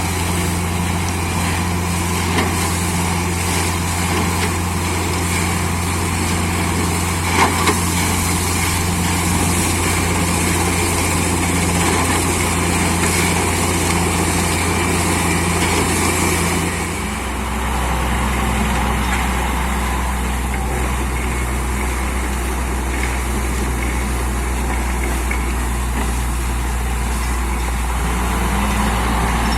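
Borewell drilling rig's engine and air compressor running steadily with a loud hiss. About seventeen seconds in, the engine note drops lower and the high hiss eases off.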